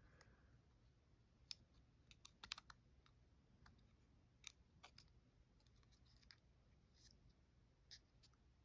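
Near silence with faint, irregular small clicks and taps, about a dozen, from the metal and micarta parts of a Spyderco Para 3 folding knife being handled as a canvas micarta handle scale is fitted onto it.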